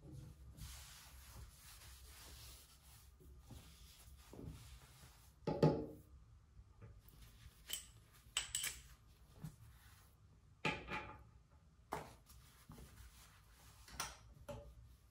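Cloth rubbing and wiping a chrome basin tap and ceramic sink, with a series of soft knocks and clicks as the tap and basin are handled, the loudest about five and a half seconds in.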